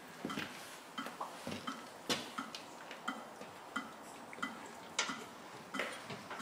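Footsteps on a hard floor: irregular sharp clicks and soft thumps about two or three times a second, with a louder crunch about two seconds in and again about five seconds in.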